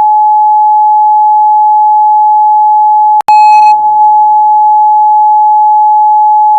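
A steady, loud, pure electronic beep tone at about 850 Hz, the cartoon siren's newly lowered beep, held continuously and broken once by a brief click a little over three seconds in.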